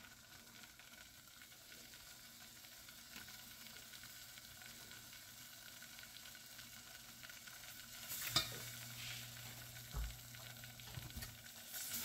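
Butter-and-flour roux sizzling faintly in a stainless steel saucepan while it is stirred with a silicone whisk. A few light knocks and scrapes come in the second half.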